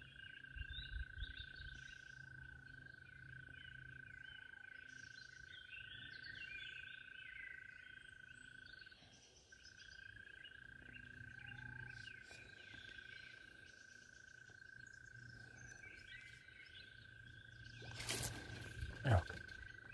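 Outdoor wildlife sounds: a steady high-pitched call held almost without a break, stopping briefly about nine seconds in, with birds chirping over it. Near the end comes a sharp noise, then a quick falling sweep.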